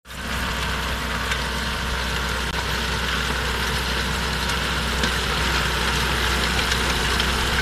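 Tractor engine running steadily under load as it drives an Ozduman inter-row rotavator, its rotor units churning through the soil between the crop rows.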